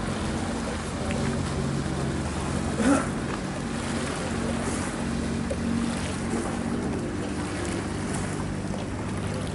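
A boat's engine running steadily, with water wash and wind noise, and a brief louder rising sound about three seconds in.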